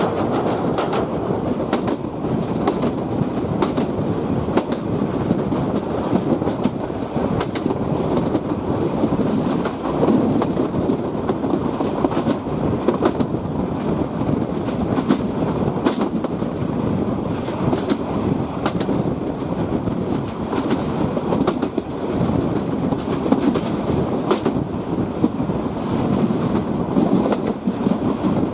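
Train running along the track: a steady rumble with frequent, irregular clicks of wheels passing over rail joints, with no let-up.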